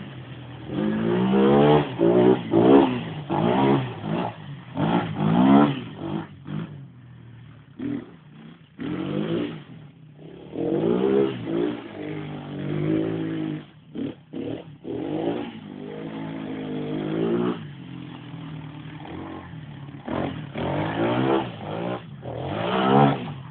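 ATV engine revving hard and falling back again and again as the throttle is opened and closed.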